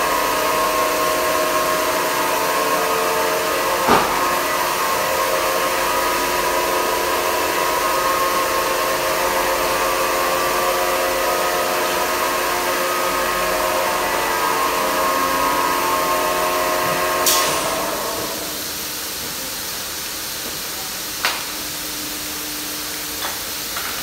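Semi-automatic granite polishing machine running, its spinning abrasive head grinding a wet black granite slab with a steady motor whine and hiss. There is a sharp knock about four seconds in. After about eighteen seconds the whine dies away, leaving a lower hum with a few clicks.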